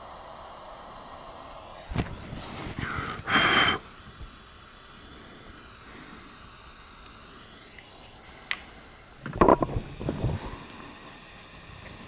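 Hand-work noises from tools and wires being handled: a sharp click about two seconds in, then a rustling scrape for about a second, and a short clatter of knocks near the end, over a steady faint hiss.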